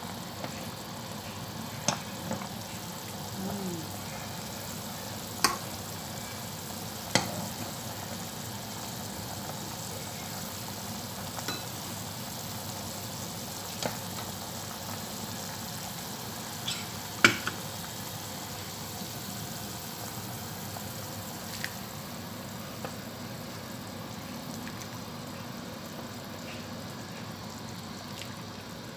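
Pot of beef broth at a rolling boil, bubbling steadily, with a few sharp clinks of a metal ladle against the pot, the loudest about 17 seconds in.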